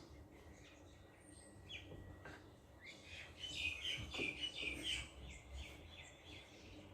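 Small birds chirping faintly, with a quick run of short high chirps from about three to five seconds in.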